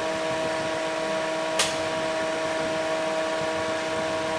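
Cooling fan of a Kollmorgen PSR45A-250 bus power supply running steadily, with a steady hum of several tones. A single sharp click sounds about one and a half seconds in.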